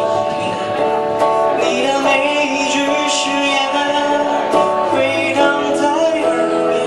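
Live band music: a male voice singing a slow pop song into a microphone, backed by an electric guitar and a cajón struck by hand.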